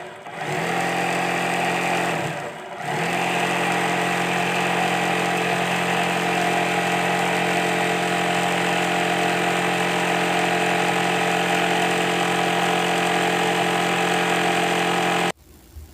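Electric sewing machine running at speed with a steady motor whine. It eases off briefly about two and a half seconds in, runs on evenly, and stops abruptly near the end.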